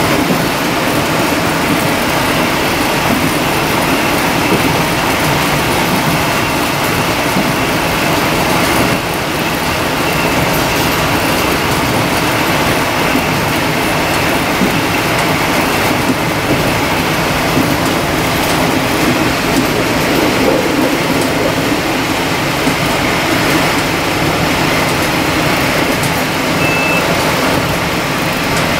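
Taiwan Railways DR2700 series diesel multiple unit under way, heard from on board: the steady running of its diesel engine mixed with wheel-on-rail noise.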